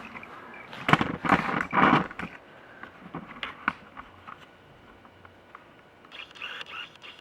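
Handling noise: a loud rustling, clattering burst about a second in, followed by scattered light knocks and clicks.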